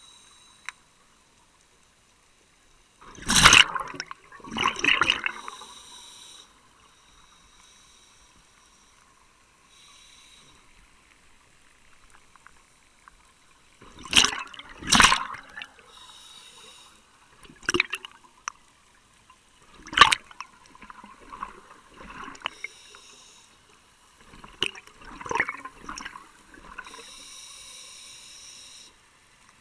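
Scuba diver breathing through a regulator underwater. Exhaled bubbles come in loud bubbling bursts every few seconds, with a quieter hiss of inhalation between them.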